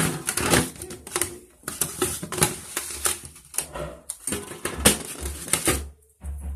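Sticky edible candy slime being kneaded and pulled apart by hand, a rapid, irregular run of wet clicks and crackles as it sticks to and peels off the fingers. Low thumps of handling join in during the second half.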